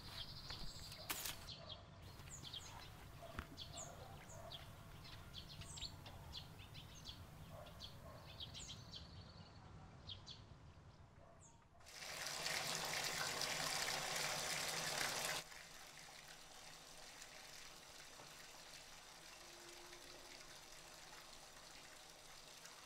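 Birds chirping over a faint low hum, then a shower turned on about twelve seconds in, its water running loudly for a few seconds before dropping to a quieter steady hiss.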